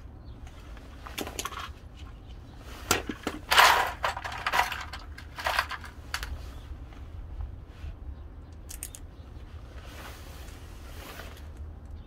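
A series of clattering knocks and scrapes of hard objects being handled, loudest about three to four seconds in, over a steady low hum.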